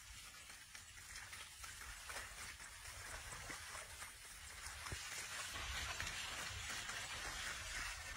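Oxen hooves and a plough sloshing through flooded paddy mud: a steady wet crackling and splashing, a little louder in the second half, over a low rumble.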